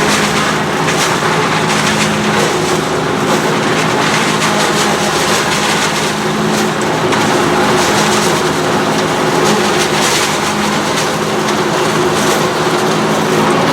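Tractor engine running steadily under load with a forage harvester chopping maize, a dense steady machine noise.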